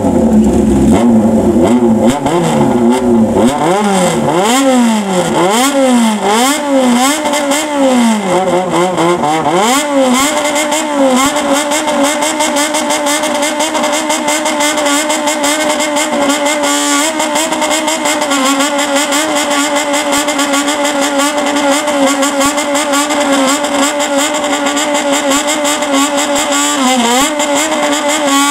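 Stationary motorcycle with a straight-pipe exhaust revved in a "call": the rider blips the throttle so the engine note swings up and down in quick rising and falling revs, then holds it high and steady, breaking off briefly once and dipping and climbing again near the end.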